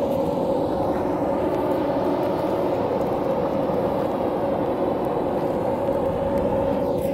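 Steady machine drone with a constant mid-pitched hum, unchanging in level.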